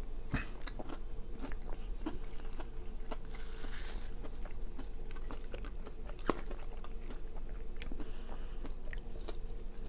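Close-miked chewing and biting with crunchy mouth sounds, a run of small wet clicks, and one sharper click about six seconds in.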